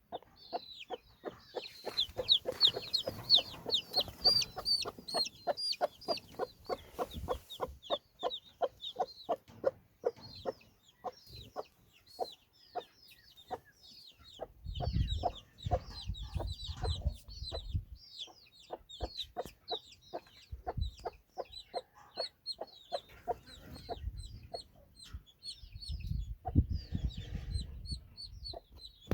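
Chickens clucking in a steady run of short calls, about three a second, with higher chirps over them. A low rumble comes up twice, about halfway through and again near the end.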